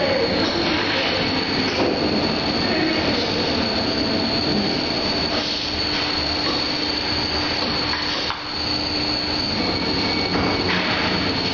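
FAST 700P dough sheeter running, its motor driving the conveyor belts and rollers as a slab of dough is rolled out. The mechanical noise is loud and steady, with a constant high whine and a lower hum, and dips briefly about eight seconds in.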